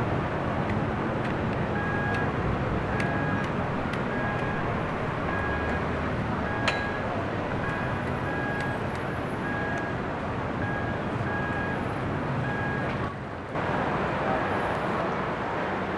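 City street traffic noise, with a short electronic beep repeating steadily about one and a half times a second that stops near the end, and one sharp click about seven seconds in.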